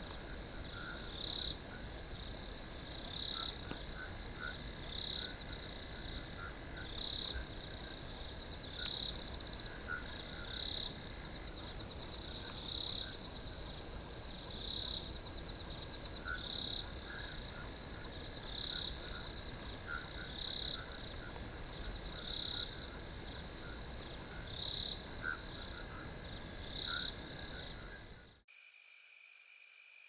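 A chorus of crickets trilling steadily, with a louder chirp repeating about every two seconds. Near the end it cuts abruptly to a different recording of a higher-pitched insect trill.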